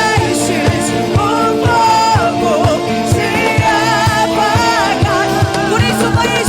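Live church worship music: sustained keyboard chords over a steady kick-drum beat of about three a second, with a voice singing a melody of long, gliding notes.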